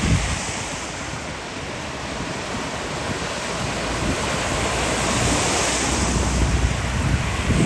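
Storm wind and heavy rain making a steady rushing hiss, with gusts buffeting the microphone in low rumbles, strongest near the start and again through the second half.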